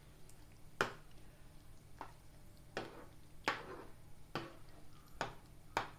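Steel spoon scraping and knocking against a nonstick pan while thick ground masala paste is stirred into chicken liver pieces, about seven short strokes every second or so.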